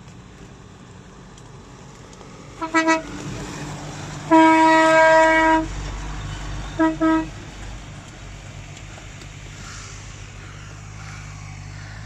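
Off-road pickup's horn: two quick toots, one long honk of about a second and a half, then two more quick toots. An engine runs underneath.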